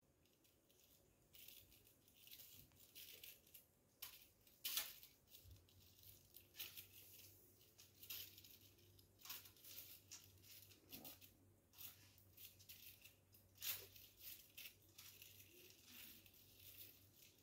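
Faint, irregular scratching and rustling as a kitten paws and claws at the wallpaper and the electric garland's lights, with a few louder scrapes; a faint low hum sets in about five seconds in.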